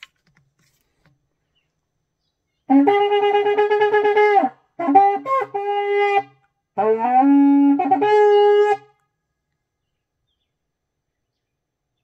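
A shofar blown in three blasts. The first is a held note that slides up quickly at its start. The second is broken into short notes. The third glides upward before holding steady.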